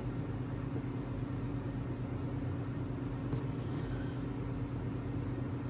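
Steady low background hum, with a few faint soft ticks as pats of butter are set onto dry cake mix.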